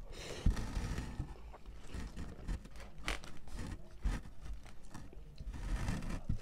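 Close-up chewing of a mouthful of food, with a plastic fork scraping and clicking against a styrofoam takeout container between bites.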